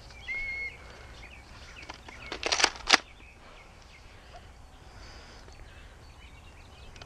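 Plastic clacking from a Nerf Mega blaster being primed: a quick rattle of clicks about two and a half seconds in, ending in one sharp snap. A brief high chirp sounds near the start, and another sharp snap comes right at the end as a dart is launched.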